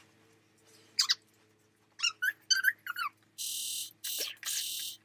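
Electronic sound effects from a toy military play set: a few short, high chirping warbles, then two bursts of radio-style static, each just under a second, over a faint steady electronic hum.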